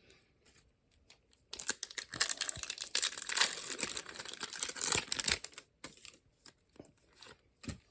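Foil Pokémon booster pack wrapper being torn open and crinkled: a burst of crinkling starts about a second and a half in and lasts around four seconds, followed by a few faint ticks.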